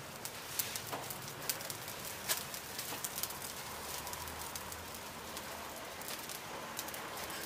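Charcoal burning in clay stoves under claypots, crackling with many scattered sharp pops and snaps over a steady hiss as the coals are fanned by hand.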